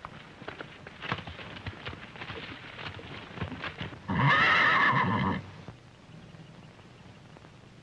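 Horses' hooves clopping irregularly for about four seconds, then a single loud horse whinny lasting just over a second.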